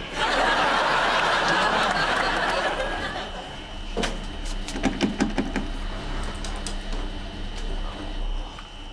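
Studio audience laughing, loudest in the first three seconds and then dying away, followed by a few light knocks and clicks.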